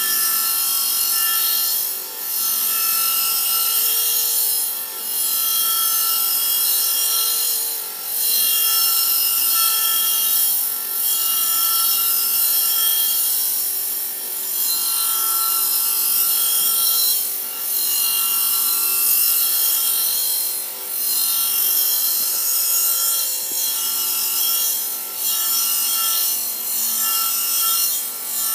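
Polishing machine running with a steady whine while a metal missile casing is worked against it in repeated passes of abrasive rubbing; the sound dips briefly about every two to three seconds as each stroke ends.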